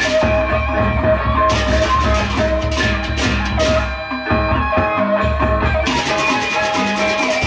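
Sasak gendang beleq ensemble playing: fast interlocking clashes of handheld cymbals over big drum beats and steady pitched metal tones. The cymbals come in bursts, thin out about four seconds in, and return as a dense rattle about two seconds later.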